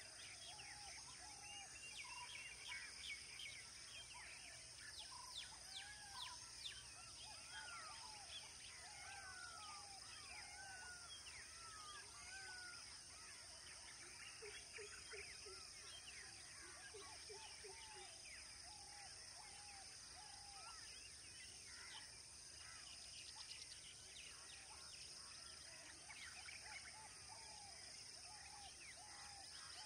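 Faint chorus of birds chirping and calling, many short whistled notes repeating throughout, over a steady high hiss.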